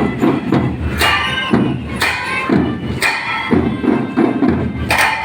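Music with a heavy drum beat falling about once a second.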